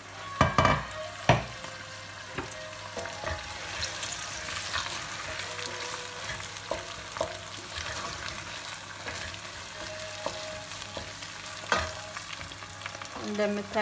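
Cooked-through ground-meat filling with tomato and red pepper sizzling in a stainless steel pot while a wooden spoon stirs and scrapes through it, with small scattered clicks. A few louder knocks come in the first second and a half.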